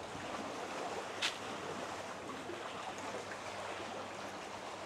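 Steady rushing outdoor background noise, with one short sharp click about a second in.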